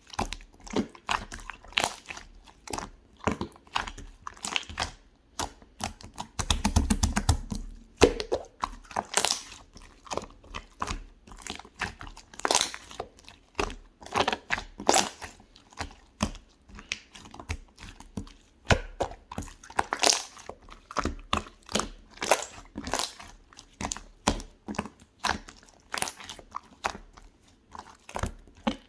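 Hands squeezing and pressing clear slime: irregular sticky clicks and wet pops, with a denser run of crackling about seven seconds in.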